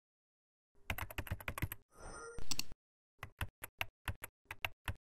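Computer keyboard typing: a quick run of keystrokes about a second in, then a louder click, then single keystrokes at about five a second in the second half as a password is typed.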